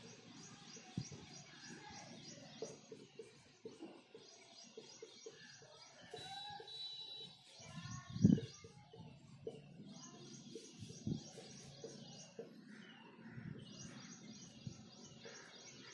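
Faint strokes and ticks of a marker writing on a whiteboard, with a soft knock about eight seconds in. Small birds chirp rapidly in the background in several stretches.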